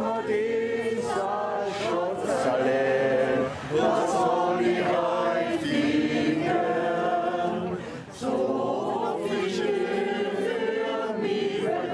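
A group of men and women singing a song together without accompaniment, in long held notes, with short breaks between phrases.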